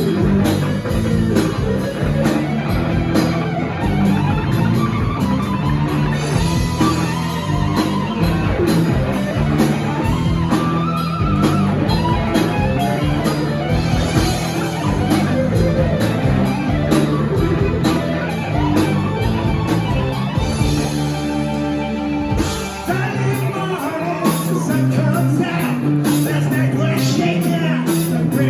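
Hard rock music with electric guitar, bass and drums, played loud. About 23 seconds in, the deep bass drops out and the music thins briefly before carrying on.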